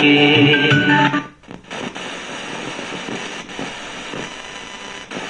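An iBell Castor FM660BT radio's speaker playing an FM station's music for about a second, which then cuts out as the dial is tuned off the station, leaving steady static hiss between stations.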